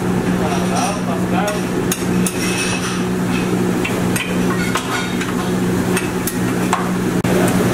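Busy restaurant kitchen: a metal spatula and pans clatter and knock repeatedly on a gas range and griddle over a steady mechanical hum.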